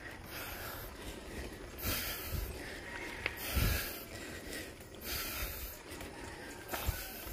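Hard breathing of a cyclist climbing uphill, with several hissing breaths a second or two apart over a low wind rumble on the microphone.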